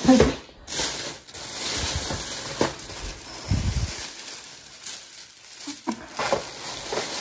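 A thin plastic shopping bag rustling and crinkling on and off as a hand rummages through small cardboard boxes inside it.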